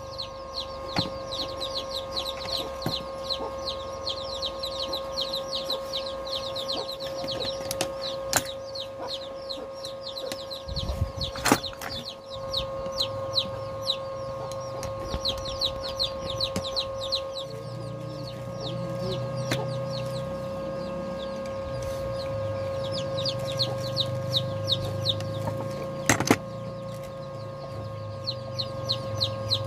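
Birds calling in the background, a rapid series of short descending chirps repeating many times a second, over a steady hum. A few sharp clicks stand out, about eight, eleven and twenty-six seconds in.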